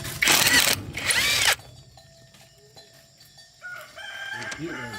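Two short bursts of a handheld power tool running, each starting and stopping abruptly, its pitch rising and then falling in the second burst.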